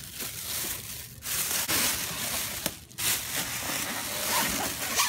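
Plastic wrapping and styrofoam packaging rustling and crinkling in several bursts as a hoverboard is handled and lifted out of its foam insert.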